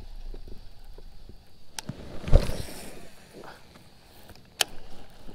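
Handling of a baitcasting rod and reel in a kayak: a sharp click a little under two seconds in, a louder swish of a cast just after it, and another sharp click of the reel near the end.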